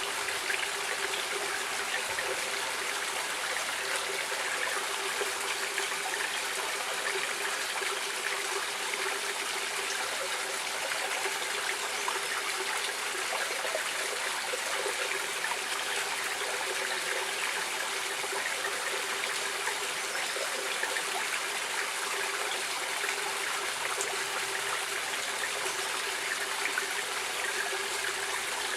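Stream water running steadily over stones, a continuous babbling and trickling with no change in level.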